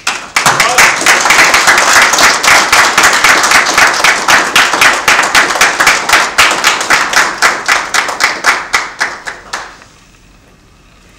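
Audience applauding. The clapping starts suddenly, thins toward the end into separate claps, and stops about ten seconds in.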